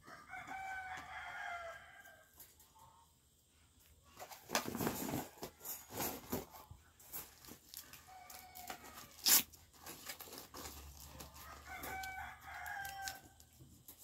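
Two drawn-out pitched animal calls, one near the start and one near the end, each lasting about a second and a half. Between them, rustling and handling noise from the cage parts being worked, with a sharp click about nine seconds in.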